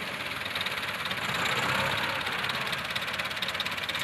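Diesel tractor engine running steadily near idle with an even, rapid beat, swelling slightly about a second and a half in.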